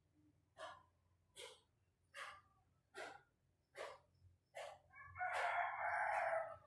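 An animal calling: six short calls about one every 0.8 s, then one louder, longer call lasting about a second and a half near the end.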